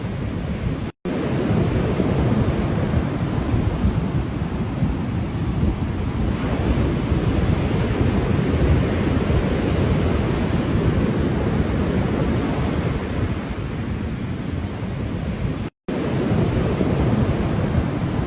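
Ocean waves washing onto shore in a steady, unbroken surf noise, heaviest in the low rumble. The sound cuts out completely for an instant twice, about a second in and near the end.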